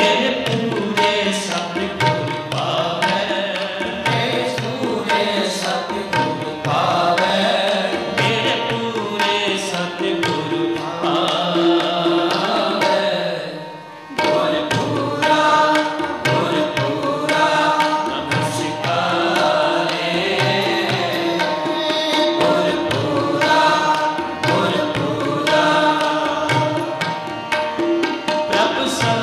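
Gurbani kirtan: harmonium playing held and melodic notes with tabla keeping the rhythm, and a man's voice singing. The music dips briefly about halfway through, then carries on.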